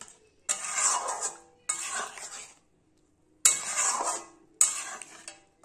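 Spatula scraping and stirring through thick fish curry gravy in a metal kadai, four separate strokes each under a second long with short pauses between.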